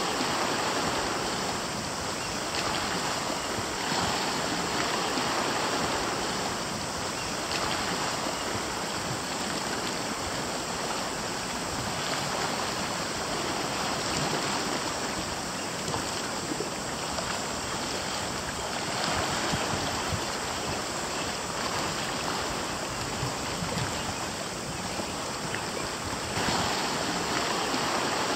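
Small sea waves washing against a rocky shore, a steady wash that swells and eases every few seconds.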